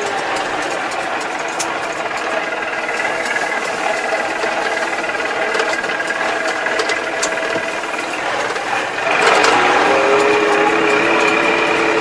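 Massey Ferguson tractor's diesel engine running while driving, heard from inside the cab, with faint scattered clicks. About nine seconds in the engine gets louder and its note changes.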